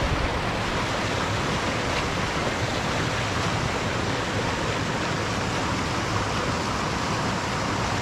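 Small creek waterfall rushing over rocks: a steady, even wash of water noise.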